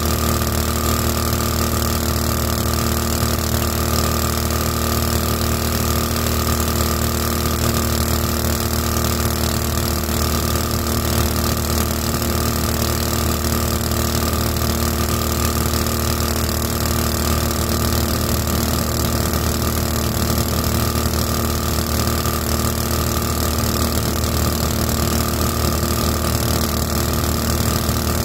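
Small 224 cc single-cylinder boat engine driving a 7-inch two-blade prop, running steadily at cruising throttle with no change in pitch, under a steady hiss.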